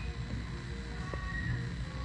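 Steady low room rumble with faint background music.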